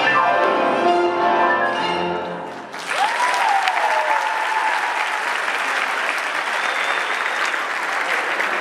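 Recorded tango music with violins and piano ends on a final note a little under three seconds in, and audience applause breaks out at once, with a single rising and falling cheer just after it starts.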